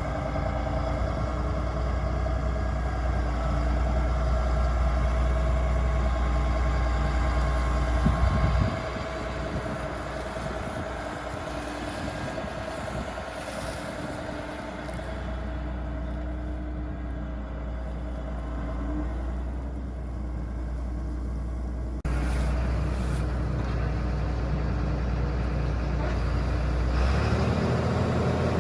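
Heavy harvest machinery running steadily, a deep engine rumble with a steady whine above it. The sound changes abruptly about nine, twenty-two and twenty-seven seconds in.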